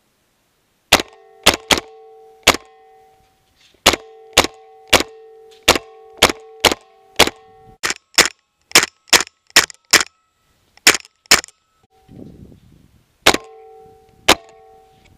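Kimber 1911 pistol firing about twenty shots at an uneven pace, with a pause about three-quarters through. A steady metallic ringing hangs on after many of the shots.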